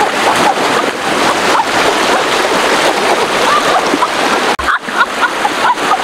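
Shallow stream rushing loudly over rocks, with splashing from a person wading and moving through the current.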